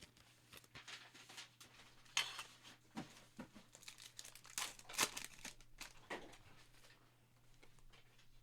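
Trading cards and a foil pack wrapper being handled: faint crinkling and tearing with short scrapes and clicks. The loudest come about two and five seconds in.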